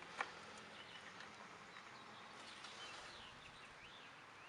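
Near silence with faint bird chirps in the background, and a single click just after the start.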